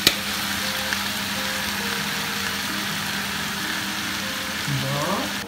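Shredded chicken and spice paste frying in a pan, a steady sizzle.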